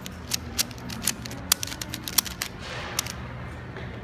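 Rubik's Cube being turned by hand: an irregular run of sharp plastic clicks and clacks, a few much louder than the rest, over a steady low hum.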